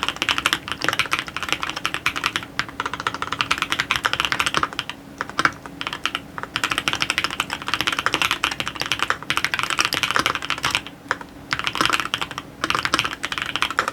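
TX66 custom mechanical keyboard with fully lubed Creamsicle switches and a one-layer tape mod, typed on quickly in long runs of keystrokes with a few short pauses. The typing stops at the very end.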